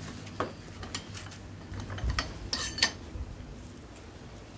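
Steel rods clinking against each other and against a bench vise as they are handled and clamped: several separate sharp metal clinks, the loudest two close together a little past halfway, over a steady low hum.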